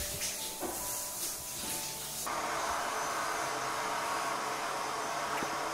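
Shower spray hissing on wet hair, cut off abruptly about two seconds in by a hand-held hair dryer blowing steadily.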